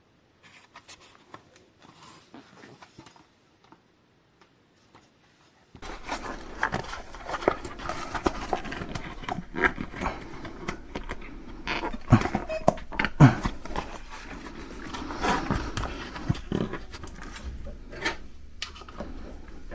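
Hands working a tight bicycle tyre and inner tube off a 20-inch rim: rubber rubbing and dragging, with sharp clicks and knocks of the tyre lever on the rim. Faint for the first several seconds, then suddenly louder with a steady low hum underneath.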